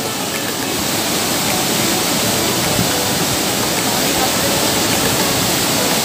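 Waterfall plunging into a rock pool: a steady, loud rush of falling water.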